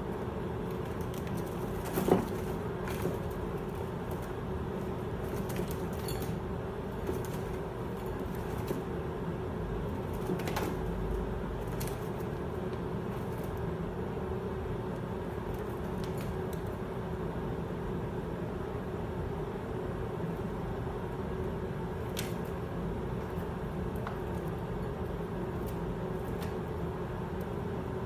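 Guinea pigs scrabbling and hopping in wood-shaving bedding and plastic trays, with scattered light knocks, the sharpest about two seconds in, over a steady background hum.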